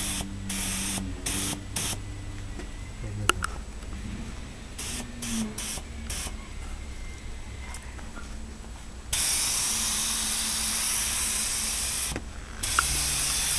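Gravity-feed spray gun spraying primer in short hissing blasts, several quick pulls of the trigger in the first six seconds, then a longer steady spray of about three seconds near the end.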